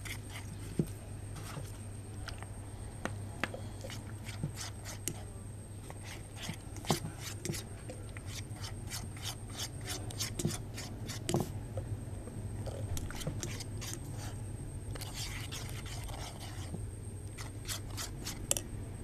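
Plastic spoon stirring and scraping a thick slime mixture in a plastic bowl, with irregular clicks and scrapes, as borax activator is mixed in and the mixture turns into slime.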